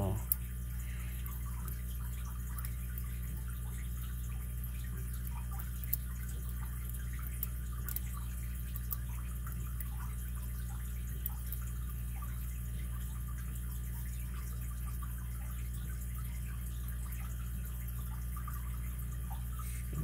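Faint, irregular clicking and scraping of a steel lock pick working the pin tumblers of a solid brass Hercules 800 padlock under tension, with a few slightly sharper clicks, over a steady low hum.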